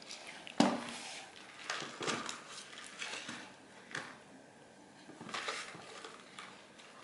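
Small objects knocking and clattering on a tabletop as they are stacked and handled, with a sharp knock just over half a second in and a few lighter ones after.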